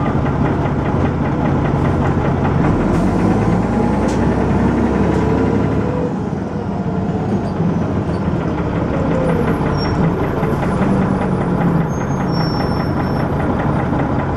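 Dennis Arrow double-decker bus engine working under way, heard from inside the bus, with the knocking noise and thrash it is known for. The engine note glides up, dips briefly about halfway through, then climbs again.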